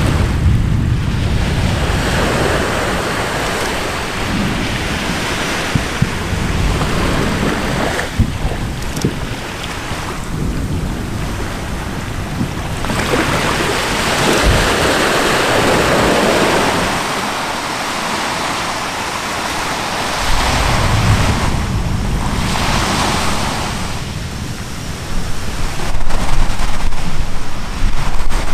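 Rushing outdoor noise of wind and surf, swelling and easing, with wind buffeting the microphone and making the sound choppier in the last few seconds.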